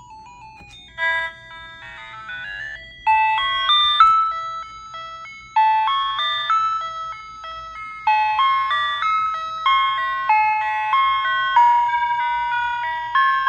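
Vixen 46 electronic chime sound unit playing a tune of stepped electronic notes through its small original horn speaker, with its pitch setting being turned down. The tune is quieter for the first few seconds, then louder from about three seconds in.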